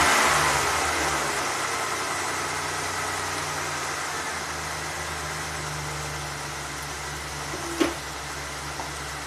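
Ford Probe's 3.0 L Vulcan V6 running just after start-up, its revs easing down and settling into a steady idle. A single sharp click about eight seconds in.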